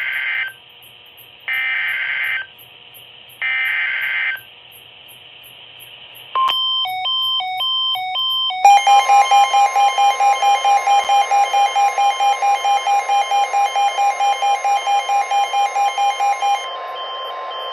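Emergency Alert System signal: three screeching SAME data bursts about a second apart, then a warbling two-pitch alert tone, then a long steady attention tone pulsing about four to five times a second that cuts off sharply near the end, followed by quieter beeping. The tones mark the start of a new weather alert.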